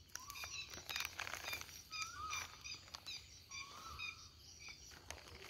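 Faint night-time animal chirps: short repeated high chirps with a few brief gliding calls, mixed with a few light clicks.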